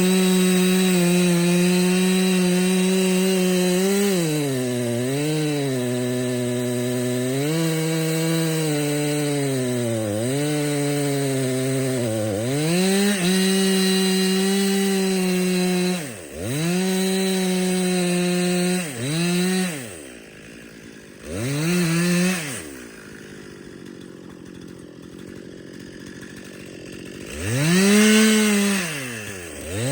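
Two-stroke chainsaw cutting bitternut hickory at full throttle, its pitch sagging and recovering as the chain loads up in the wood. In the second half the throttle is let off and blipped several times, and the saw idles for a few seconds before one last rev near the end.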